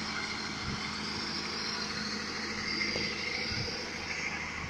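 A vehicle engine running steadily, a low even hum with no changes in pitch.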